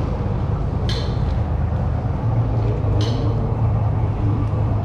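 Steady low rumble with a hum, and two short high chirps, about a second in and three seconds in.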